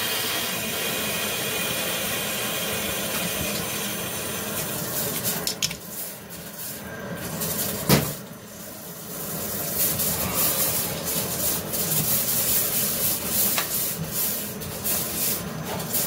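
Water rushing into the drained tank of a Bradford White gas water heater as it is refilled: a steady hiss. A sharp knock comes about eight seconds in, with scattered clicks after.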